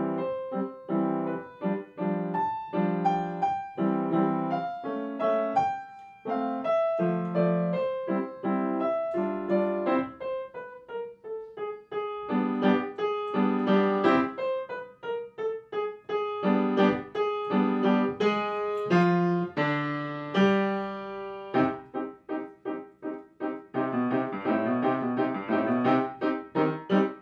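Piano music: a melody over chords, the notes coming faster and busier near the end.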